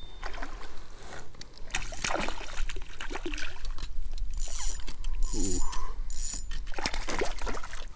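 A hooked smallmouth bass splashing at the water's surface beside the kayak as it is reeled in, with several splashes in the second half.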